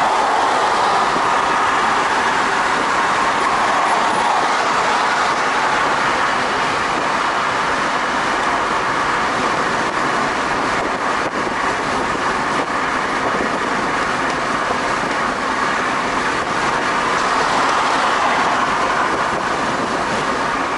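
Steady road and tyre noise heard from inside a car's cabin while it cruises at freeway speed.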